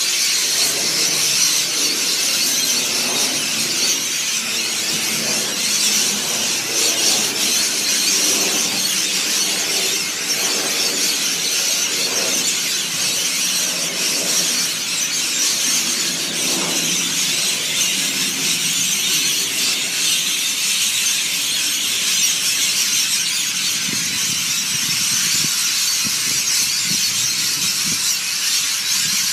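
A large flock of hundreds of birds calling all at once: a dense, continuous, high-pitched screeching chatter that never lets up.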